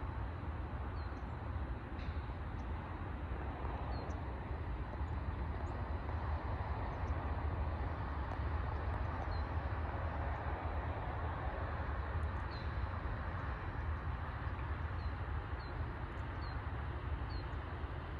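Steady low outdoor rumble and hiss, with a few faint, short high chirps scattered through it.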